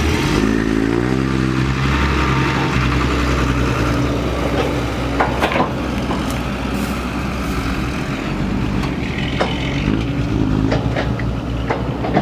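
Kobelco excavator's diesel engine working under hydraulic load, its pitch rising as it revs up about a second in and again near the end. A few sharp clanks come through.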